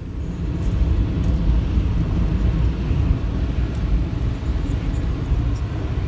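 Steady road and engine rumble inside a moving car's cabin.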